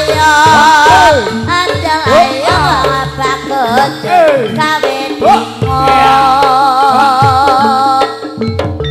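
Live Javanese jaranan music for the horse dance: drums played in a repeating pattern under a wavering, gliding melody line with vibrato.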